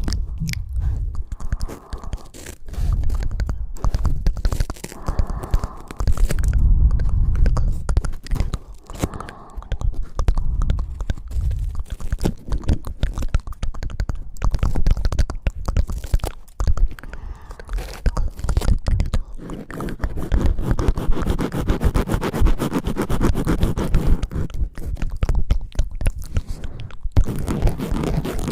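Ear-cleaning tools, ear-scraping sticks, scraping and rubbing close against an ASMR microphone's ear, a dense crackling scratch with low rumbles. The strokes come in clusters at first and turn into faster, more continuous rubbing about two thirds of the way in.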